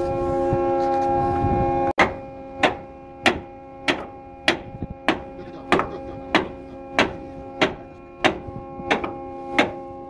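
Steady drone of a ship's anchor windlass. From about two seconds in, the heavy anchor chain clanks link by link over the windlass gypsy: evenly spaced metallic clanks with a short ring, about three every two seconds.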